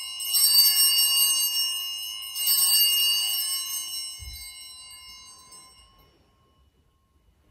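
Altar bells rung twice at the elevation of the chalice after the consecration: a ring just after the start and another about two seconds later, each fading slowly. A soft low thump comes about four seconds in.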